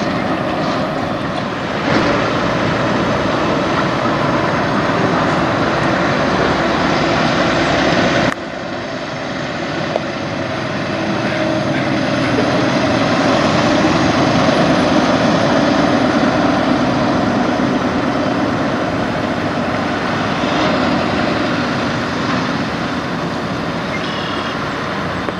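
Diesel engines of semi trucks pulling out under load, a steady engine drone. It drops off abruptly about eight seconds in, then builds again toward the middle.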